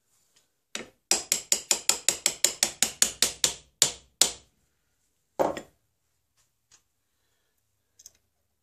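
Small hammer tapping a brass buttplate down onto a wooden gunstock to seat it. One strike, then a quick run of about fifteen light taps, about six a second, then two harder blows and a single last strike about a second later.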